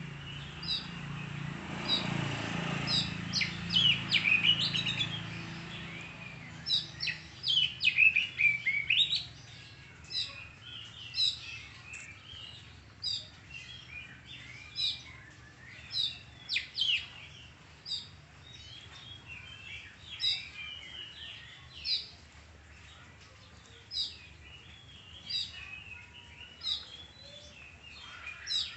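Oriental magpie-robin (kacer) singing: quick runs of whistled, sweeping notes in the first nine seconds, then short sharp chirps repeated about once a second. A low rumbling noise runs under the song for the first few seconds.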